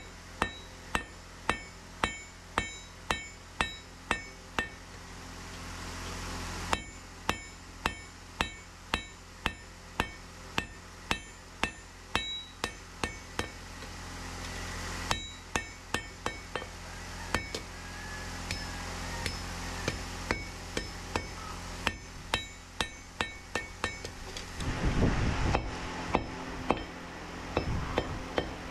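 Hand hammer striking red-hot Damascus steel on an anvil, about two blows a second in runs with short pauses between. Each blow rings off the anvil over a steady low hum, and a louder rush of noise comes near the end.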